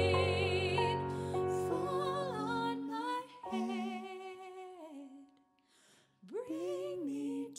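Female and male voices singing a wordless harmony: a long held note with vibrato ends about a second in, then slow stepwise phrases, a short break, and a rising slide into the next phrase near the end.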